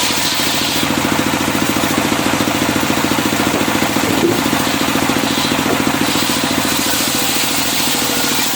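Engine of a circular-saw sawmill running steadily, with a fast, even pulse.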